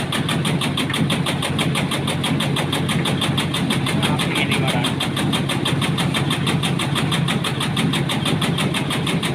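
Motor-driven tobacco-cutting machine running steadily while leaves are fed through. It makes an engine-like drone with a fast, even pulsing.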